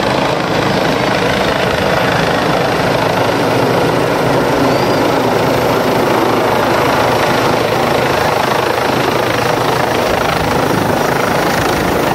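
Police helicopter with a shrouded fenestron tail rotor flying low overhead as it descends, its rotor chop and turbine noise loud and steady.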